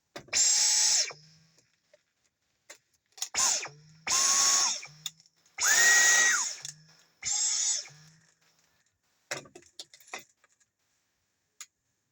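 Dyson V10 cordless stick vacuum's motor run in five short bursts of about a second or less, each a whine that starts sharply and winds down as it cuts off: the repaired trigger switch being tested on and off. A few light clicks follow near the end.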